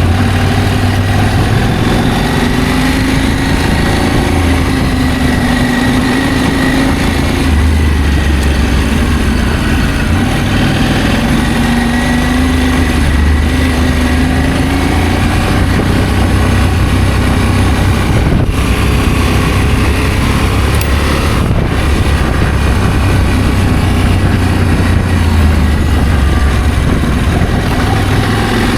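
Adventure motorcycle engine running under way, its note rising and falling with the throttle, over a steady rushing noise.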